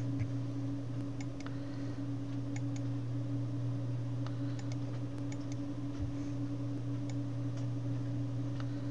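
Computer mouse clicks, a dozen or so, light and irregularly spaced, over a steady low electrical hum.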